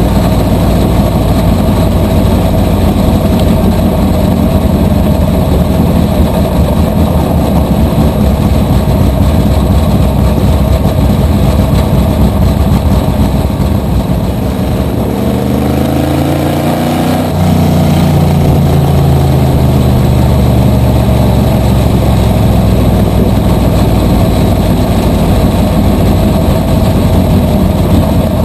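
Supermodified race car's small-block V8 engine heard from the open cockpit, running at low speed. Around the middle the engine note dips and changes pitch, then picks back up at full loudness.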